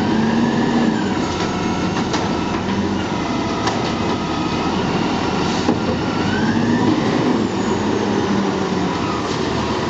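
Automated side-loader garbage truck working: a steady engine and mechanical noise, with a whine that rises and falls twice as the engine and the arm's hydraulics load up, and a few sharp knocks.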